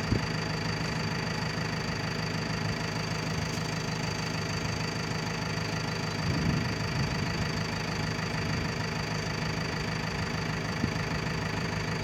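Backhoe loader's diesel engine idling steadily while its bucket is held raised.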